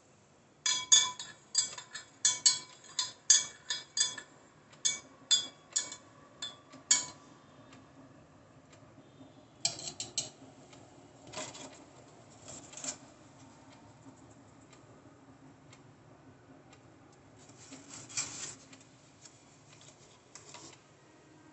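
A metal spoon stirring brewed coffee in a glass server, clinking against the glass over a dozen times in quick runs for about six seconds. A few lighter clinks follow a few seconds later, and a brief rustle near the end.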